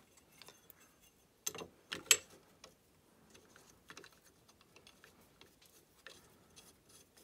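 Light clicks and taps as a dust shoe bracket and its M5 flathead screw are handled and fitted by hand onto a CNC Z-axis adapter, with a louder couple of clicks about two seconds in and faint scattered ticks after.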